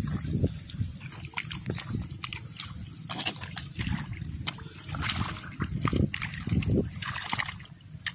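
Footsteps squelching and sloshing in the wet mud and shallow water of a flooded rice paddy, a series of irregular steps.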